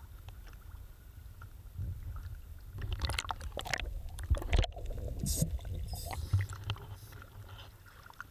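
Sea water sloshing and splashing around a waterproof action camera bobbing at the surface, with a steady low rumble. The splashing comes in bunches from about three seconds in, while the camera briefly dips underwater.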